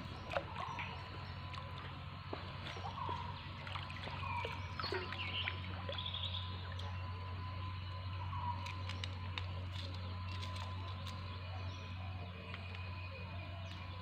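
Outdoor river ambience: birds chirping and calling now and then over a steady low hum, with a few light clicks.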